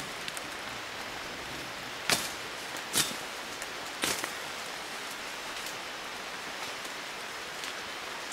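Steady hiss like light rain falling on forest foliage, with three sharp snaps about a second apart, starting about two seconds in.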